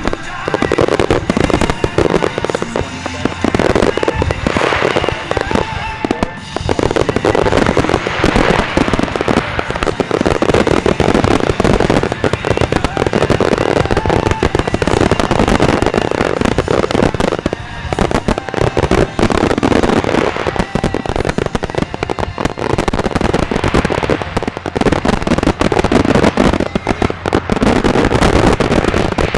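Daytime fireworks grand finale: a dense, continuous barrage of rapid bangs and crackling reports.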